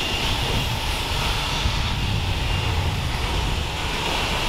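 Steady rumble and hiss of a coin-operated self-serve car wash bay with its wash system running while the paid time counts down.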